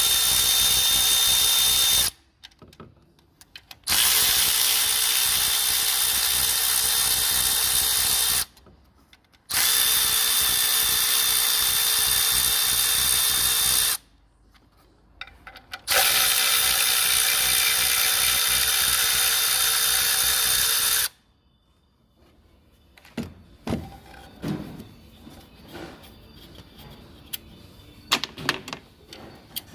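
Cordless power tool, such as an impact gun or electric ratchet, undoing fasteners on a car engine: four long steady runs of several seconds each with short pauses between. After about 22 seconds the tool stops, leaving scattered light clicks and knocks of tools and parts being handled.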